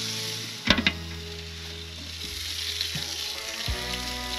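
Burger patties sizzling and steaming on a portable propane grill with water splashed onto it. A sharp metal clank comes about a second in, from the grill lid being handled.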